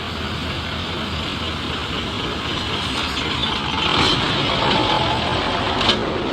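Road traffic noise, swelling as a vehicle passes close about four seconds in, with a short sharp tick near the end.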